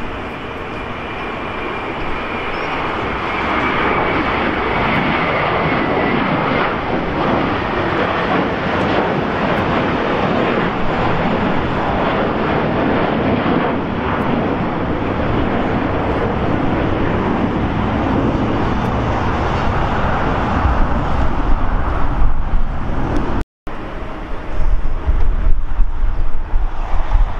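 Jet airliner engine noise, building over the first few seconds and then holding steady. It drops out abruptly about three-quarters of the way through, then comes back as a louder, uneven low rumble.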